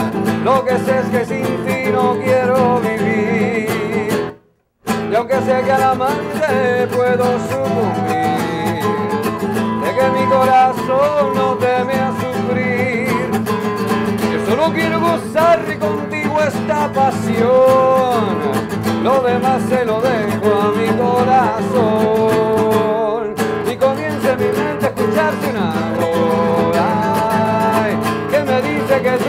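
Nylon-string acoustic guitar strummed together with a harmonica played from a neck rack, carrying a wavering melody over the chords. The music cuts out for about half a second near the start, then carries on.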